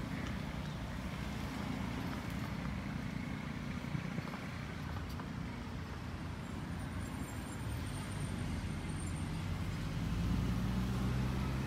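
Distant Diema diesel locomotive's engine running with a steady low hum, which grows louder in the last couple of seconds.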